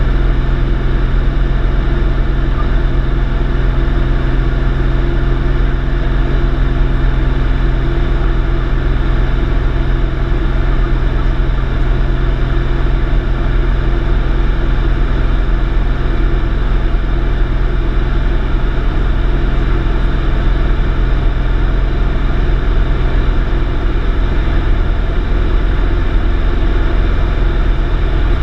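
Light aircraft's engine and propeller running steadily in flight, heard inside the cockpit as a constant low drone with no change in pitch.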